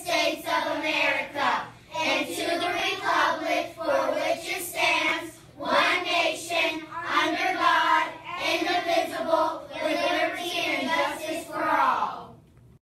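A class of young children reciting the Pledge of Allegiance together in unison, a chorus of voices in a steady chant that stops near the end.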